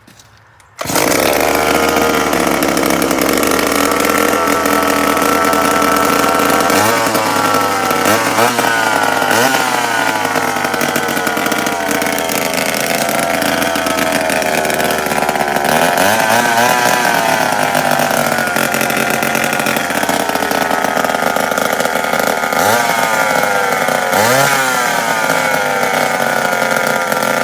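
Pioneer 1074 Easy Arc two-stroke chainsaw starting suddenly about a second in, with the choke on and throttle lock set, then running loud and steady with several brief revs that sweep up in pitch and fall back.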